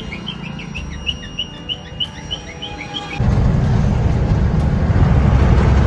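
Small birds chirping in short repeated calls, two or three a second, over a low hum. About three seconds in this gives way suddenly to the steady low rumble of a truck driving on the highway, heard from inside its cab.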